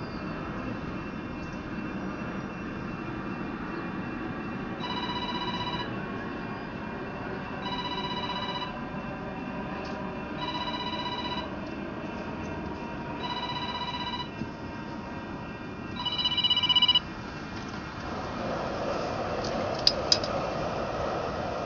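A telephone ringing five times, about one ring every three seconds, over a steady background hum. The last ring is the loudest and cuts off abruptly. Near the end come a hiss and two sharp clicks.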